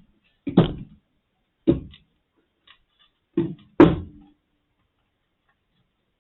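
Four short knocks of hard objects handled on a workbench, the last two close together.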